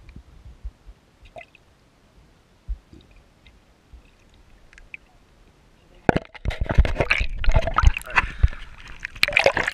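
Water heard from a GoPro camera submerged in a flooded ditch. For about six seconds there are only muffled low knocks and faint clicks; then comes a loud burst of splashing and sloshing water as the camera is pulled out.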